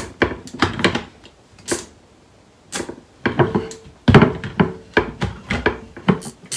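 Immersion blender with a chopper-bowl attachment blending a thick chickpea mixture for hummus, run in short irregular bursts with clattering from the blade and bowl, pausing briefly about two seconds in.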